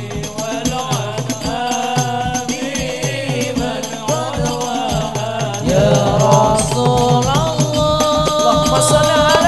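Hadroh ensemble: rebana frame drums beaten in a fast, dense rhythm under voices singing sholawat. The singing grows louder about six seconds in.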